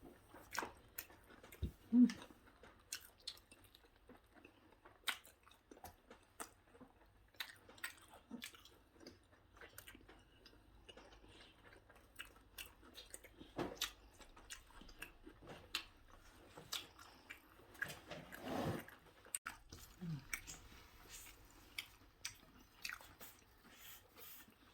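Close-up mouth sounds of a person biting and chewing lángos, a fried flatbread topped with cheese and sweet corn: irregular wet smacks and small crunches. There is a sharp louder bite about two seconds in and a longer mouth sound a little after the middle.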